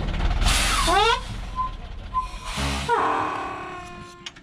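A truck engine running low, cut off about a second in under a whoosh with a rising sweep; a second whoosh comes near the middle, followed by a ringing tone that slowly fades. The whooshes and ringing tone are added sound effects rather than sounds of the scene.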